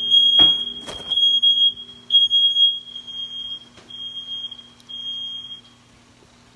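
Smoke alarm going off during stovetop cooking: one steady high-pitched beep in long stretches with short breaks, cutting off near the end. A couple of knocks sound under it about half a second and a second in.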